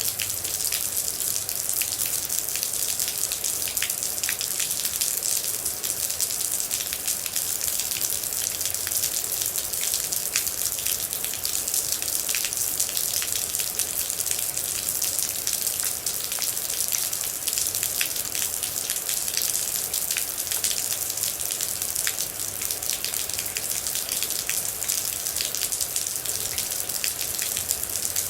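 Steady rain with many distinct droplets ticking against a surface, an even hiss throughout.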